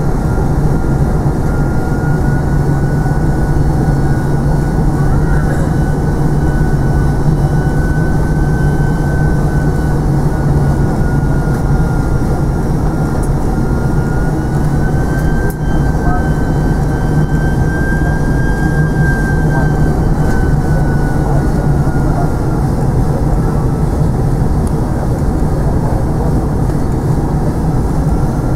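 Airliner cabin noise on the landing approach: the engines and airflow make a steady, loud rumble. Over it runs a high whine that slowly wavers up and down in pitch.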